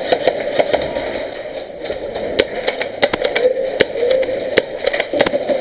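Airsoft guns firing in an indoor game hall: irregular sharp cracks of shots, a few louder than the rest, over a steady mechanical drone.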